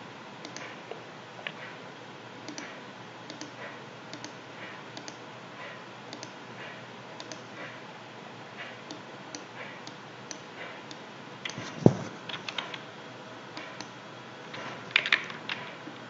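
Computer mouse clicks and keyboard keystrokes as settings are entered in a dialog: scattered light clicks, a louder knock about twelve seconds in, and a quick run of keystrokes near the end.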